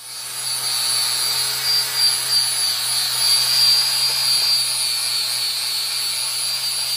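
Angle grinder running against the steel frame rail of a BMW E36, grinding down rough weld beads: a steady high whine over the hiss of the disc on metal, cutting in abruptly at the start.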